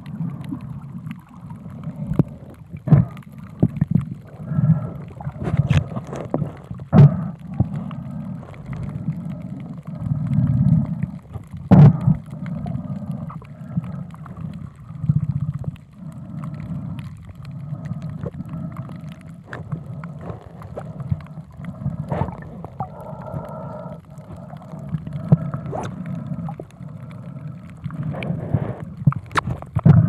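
Muffled underwater noise picked up by a camera submerged in the sea: a constant low rumble of moving water with scattered clicks and knocks.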